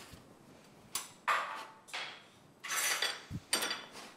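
A metal utensil scraping and clinking against kitchen cookware in about five short strokes, with a soft thump near the end.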